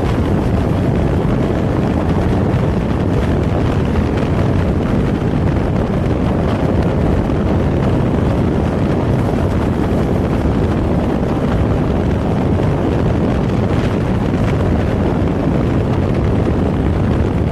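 Kawasaki Z400 parallel-twin engine and exhaust running at a steady cruise, heavily mixed with wind rushing over the microphone. There are no revs or gear changes.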